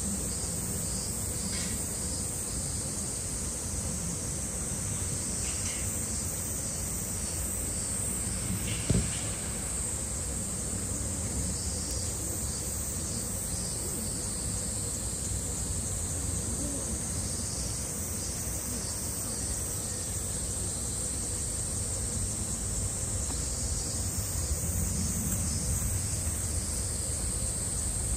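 A steady, high-pitched chorus of summer cicadas over a low background rumble, with one sharp knock about nine seconds in.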